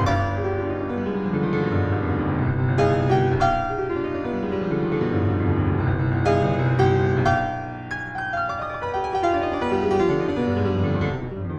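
W. Danemann grand piano, tuned to A = 432 Hz in Precise Temperament, playing a busy solo passage of quick runs and chords over ringing bass notes.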